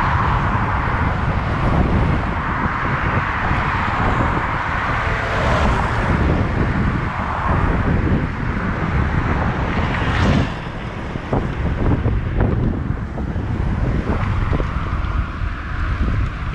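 Wind buffeting the microphone of a camera on a moving road bike, mixed with road noise and passing cars. The wind eases a little about two-thirds of the way in.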